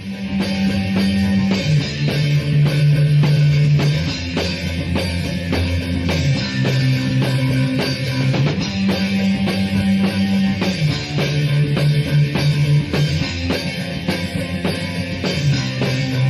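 Punk rock song with drums, bass and guitar playing a steady beat.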